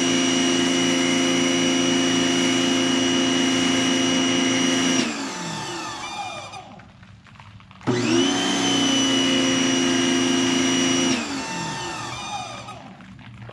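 Greenworks 2000 PSI electric pressure washer's motor and pump running with a steady whine, winding down in falling pitch about five seconds in, starting up again suddenly just before eight seconds, and winding down again about three seconds later. This is the stop-and-start of the trigger being let go and squeezed again.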